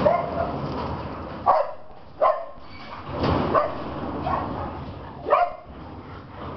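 Rottweilers barking in play: about five short barks spaced a second or so apart.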